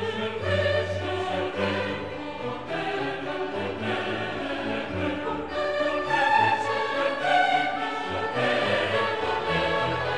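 Choral music: a choir singing held notes over instrumental accompaniment.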